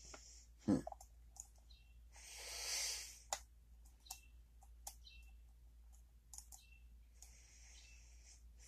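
Lock pick and tension wrench working the pins of a pin-tumbler challenge lock: scattered light clicks, with a louder knock about a second in and a soft rushing swell that rises and fades a little after two seconds.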